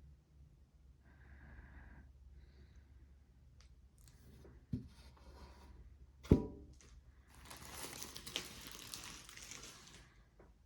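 Packaging being handled: a soft knock and then a sharp thump about six seconds in, followed by a couple of seconds of wrapping crinkling and tearing.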